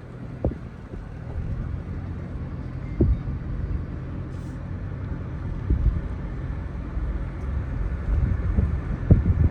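Steady low rumble of a vehicle running, with wind on the microphone and a few low thumps, the loudest near the end.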